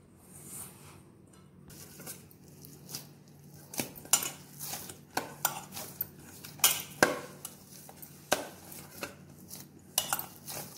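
Hands kneading wheat-flour dough in a stainless steel bowl: irregular knocks and clinks as the dough and hands press against the metal bowl, few at first and coming thick and fast from about four seconds in.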